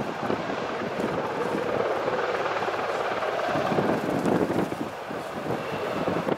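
Steady drone of aircraft engines running, with no clear pitch.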